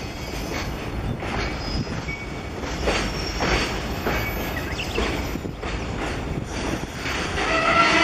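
Container freight train, hauled by an EF210 electric locomotive, crossing a steel girder bridge: a steady rumble with wheels clacking over rail joints every half second to a second. A steady high tone with several pitches joins near the end.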